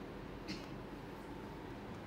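Quiet room tone with a faint steady hum, and one brief handling rustle about half a second in.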